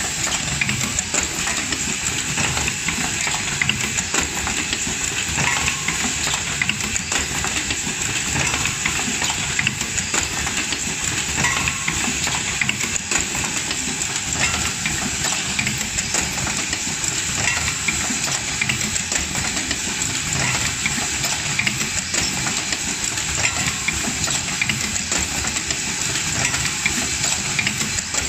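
Automatic hose clamp making machine running: a steady hiss with a dense scatter of small mechanical clicks and clatter, level throughout.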